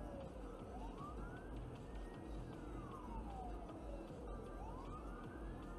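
Emergency vehicle siren wailing, its pitch rising and falling slowly about every three seconds, over a low steady rumble of traffic.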